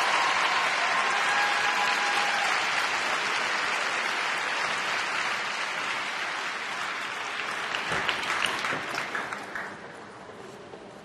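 Arena audience applauding, with a few sharper individual claps standing out before the applause dies away near the end.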